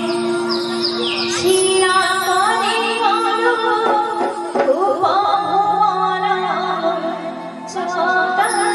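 A woman singing a devotional song into a microphone over instrumental accompaniment, with long held notes underneath the melody.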